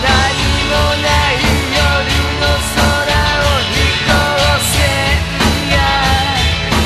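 Rock band playing a song: drums, bass, electric guitars and keyboards, with a bending melody line over a steady drum beat.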